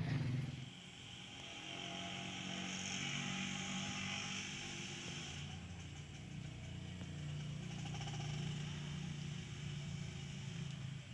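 A motor running with a steady low hum; a hiss rises about two seconds in and drops away about five and a half seconds in.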